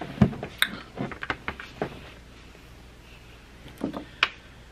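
Handling noise: scattered light taps, clicks and knocks, several in the first two seconds and a few more near the end, with no voice.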